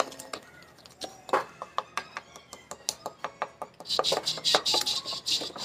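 Spoon or spatula stirring cake batter by hand, knocking and scraping against the mixing bowl in a run of quick clicks that turns faster and louder about four seconds in.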